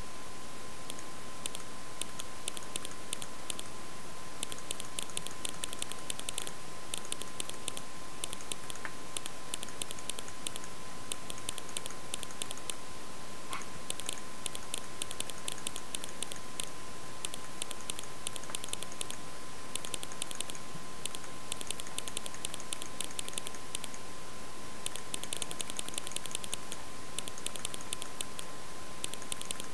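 Rapid runs of light clicks, typing-like, from a computer keyboard and mouse being worked, coming in bursts with short pauses. Under them runs a steady high whine and hiss.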